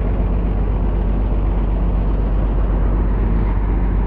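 Mercedes-Benz coach's diesel engine idling steadily, a loud, even low rumble heard close to the bus.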